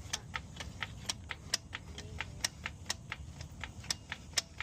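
Rapid, steady ratcheting clicks, about four to five a second, as a ratchet mechanism is worked, as when a spare tire is cranked down or a wheel is being loosened.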